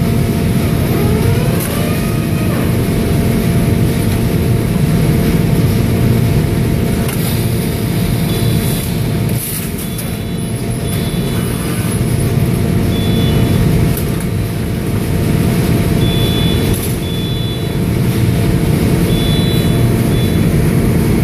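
Automatic pallet strapping line running: a powered roller conveyor and a Newell strapping machine with a Signode head make a steady low machine drone. A rising whine comes about a second in, with occasional clunks and short high-pitched tones later on.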